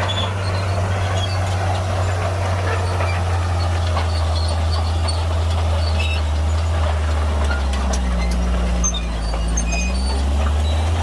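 Heavy Shantui bulldozer's diesel engine running steadily, its note sagging briefly about eight seconds in and coming back up near the end, with light clinks and clatter over it.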